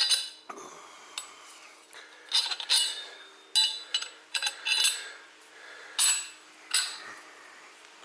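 Steel parts clinking against each other as a part is worked onto a metal shaft to test the fit: about eight sharp metallic clinks, each ringing briefly, spaced irregularly.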